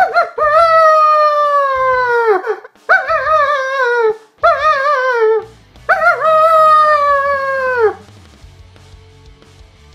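A man's natural-voice imitation of a canine howl, given four times: long held tones that drop in pitch at the end, the third with a wavering pitch. The howling stops about eight seconds in, leaving faint background music.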